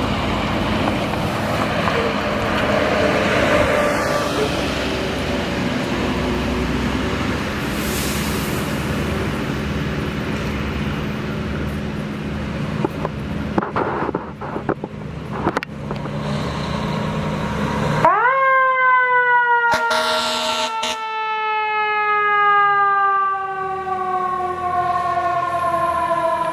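Fire engine running with a steady engine drone and traffic noise. About 18 s in, its siren winds up sharply and then slowly winds down in pitch, with two short loud blasts around 20 s.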